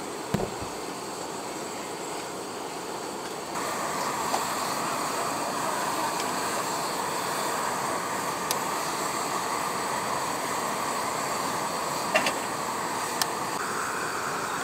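Steady rushing roar of gas burners under small hot-pot pans, getting louder about three and a half seconds in, with a few sharp clinks of metal ladles and tongs.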